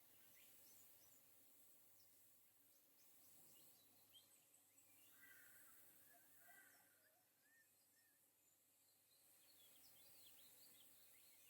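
Very faint Australian rainforest ambience: scattered bird chirps, with a short run of warbling notes about five seconds in, over a faint high insect hiss.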